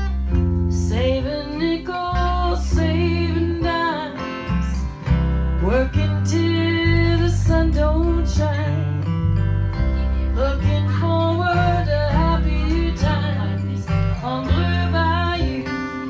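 Live band music without words: acoustic guitar strummed over a steady bass line, with a melody above that slides between notes.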